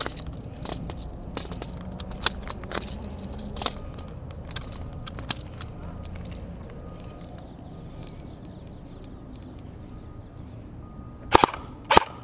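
Airsoft gunfire: scattered sharp cracks of single shots, then two louder short bursts near the end, over a low steady rumble.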